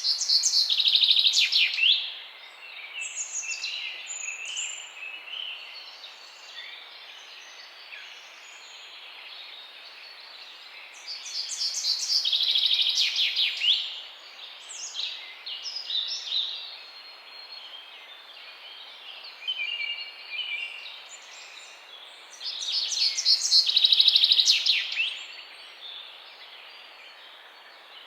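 Songbirds singing in the morning. A loud song phrase of rapid repeated notes, about two seconds long, comes three times, roughly every eleven seconds, with quieter chirps and short calls from other birds in between, over a steady faint hiss.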